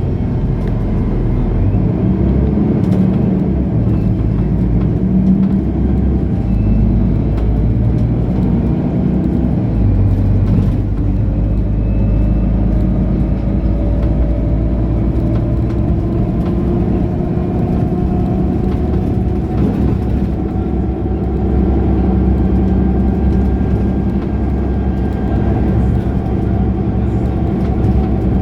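Mercedes-Benz O530 Citaro Ü bus's diesel engine running steadily under way. About ten seconds in the low drone changes, and over the second half its pitch slowly rises as the bus gathers speed.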